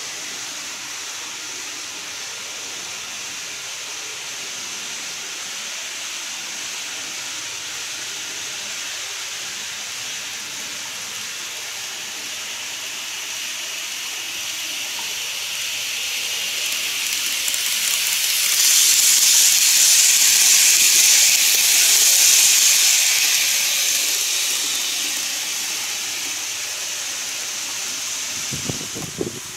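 N-gauge model train running toward and past on plastic track: a high hiss of wheels and motor that swells to its loudest about two-thirds of the way through, then fades as the train moves off. A few soft knocks just before the end.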